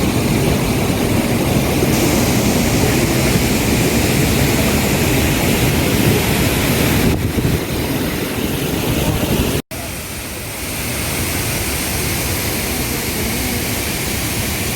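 Steady roar of Chitrakote Falls' large horseshoe waterfall on the Indravati River. It cuts out abruptly about ten seconds in, then comes back a little quieter.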